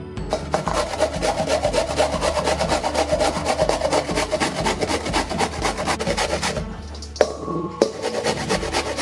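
Vegetables rasped on a metal box grater: cauliflower, then broccoli, rubbed against it in quick, regular strokes. There is a short break about seven seconds in before the broccoli grating starts.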